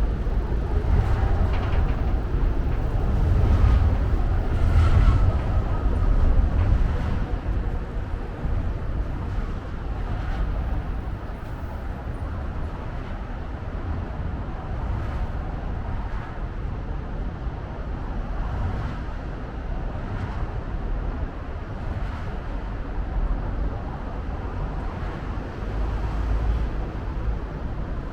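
City traffic rumble heard outdoors, a steady low noise of road vehicles that is louder for the first several seconds and then settles.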